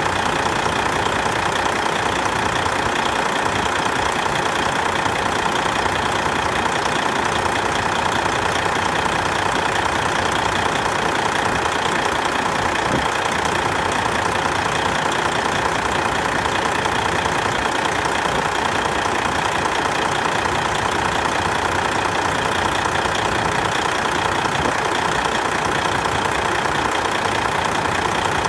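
Detroit Diesel Series 60 12.7-litre inline-six turbodiesel idling steadily.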